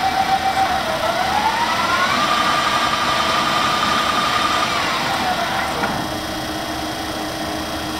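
Warner & Swasey No. 3 ram-type turret lathe headstock running, its gear whine rising in pitch about a second in as the hydraulic preselector shifts the spindle to a higher speed. The whine holds steady, then falls away around five seconds in, leaving a lower, quieter hum.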